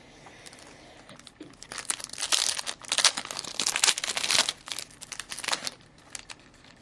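A foil trading-card pack wrapper being torn open and crumpled: a dense run of crinkling and tearing that swells about a second and a half in and dies away near the end.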